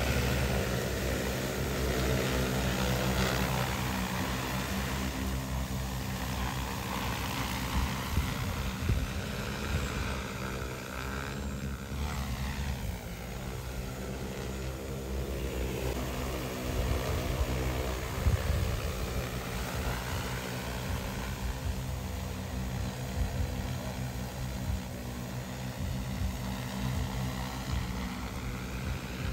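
DJI Agras T10 agricultural spraying drone in flight: the steady hum of its four propellers, its tone shifting as it moves about, most clearly around the middle.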